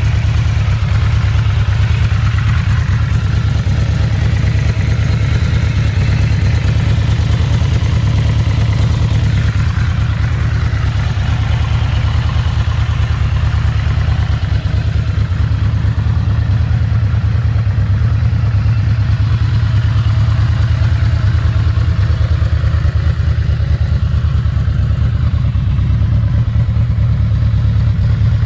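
A 2020 Yamaha VMAX's 1,679 cc V4 engine idling with a low, steady note, sounding healthy.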